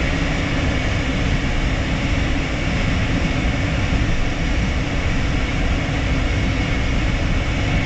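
Cockpit noise of an Embraer Phenom 300E taxiing, its two Pratt & Whitney Canada PW535E1 turbofans running at taxi thrust. It is a steady noise with a low hum and a thin higher whine.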